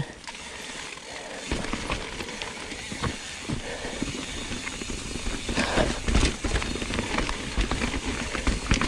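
Mountain bike rolling over dirt, leaves and rocks: tyre crunch with rattling knocks and clicks from the bike, and wind rumbling on the camera microphone. The knocks come more thickly in the second half.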